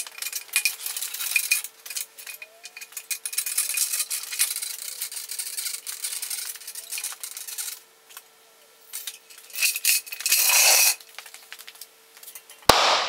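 Hand pallet truck moving a heavy milling machine across a concrete floor: rapid rattling, clicking and scraping over a faint steady hum, with a short loud hiss about ten seconds in and a sharp knock near the end.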